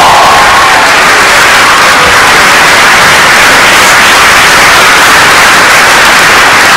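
A large theatre audience applauding loudly and without a break, the dense clapping blurring into a steady hiss at close to full recording level.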